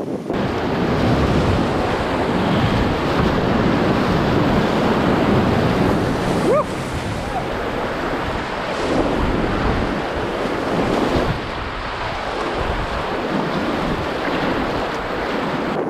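Loud, steady rushing of whitewater around an open canoe running a rapid with big standing waves, heard from a camera mounted in the canoe, with wind buffeting the microphone.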